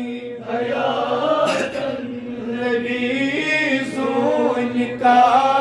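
A man's voice chanting a Kashmiri naat without instruments, drawing out long, wavering sung notes after a short breath just after the start.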